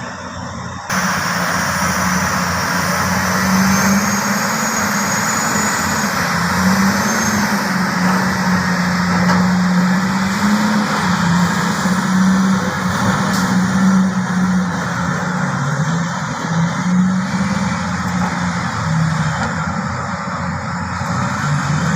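Heavy diesel engine of a large mining excavator running steadily under load, its low drone wavering slightly in pitch. The sound steps up abruptly about a second in, and a faint high whine rises and fades a few seconds later.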